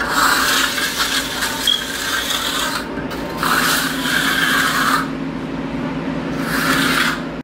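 Hand trowel scraping across a freshly poured concrete countertop in three long strokes, the last one shorter: the wet surface being smoothed and finished.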